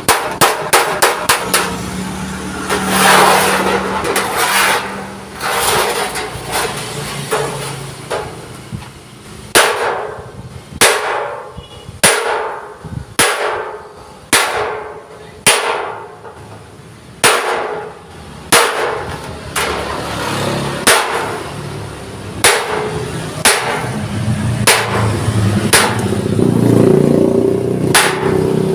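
Hammer blows on steel plate, each strike ringing briefly: a quick run of blows at the start, then slower, about one a second through the middle, and quicker again near the end.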